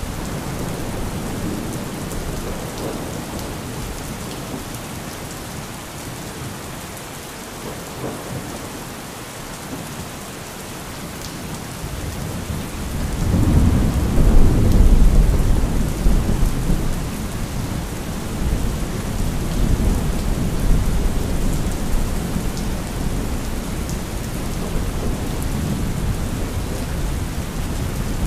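Thunderstorm: steady rain falling, with a long roll of thunder building about halfway through. The thunder is loudest a couple of seconds after it starts, then rumbles on more softly under the rain.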